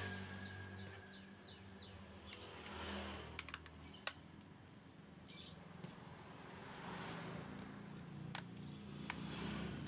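Citizen CT-500JS calculator's plastic case being handled and pressed shut, with a few sharp separate clicks over a faint low hum. A quick run of short high chirps near the start.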